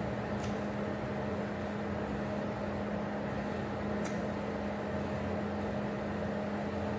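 Steady mechanical hum with a low drone, with two faint ticks, one about half a second in and one about four seconds in.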